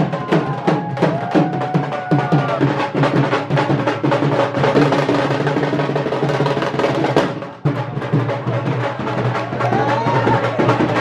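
Dhol drums beating a fast, dense rhythm, with a brief break about seven and a half seconds in.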